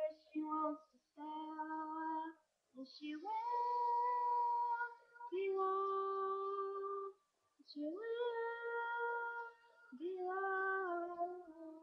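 A song with a high voice singing long held notes, phrase after phrase, with short pauses between them.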